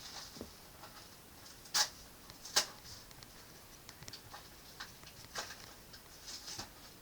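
Light drawing strokes scratching on paper, with two sharp taps about two and two and a half seconds in and a few fainter ticks.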